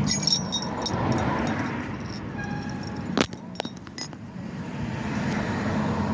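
Light metallic clinking and a few sharp clicks over a steady low rumble.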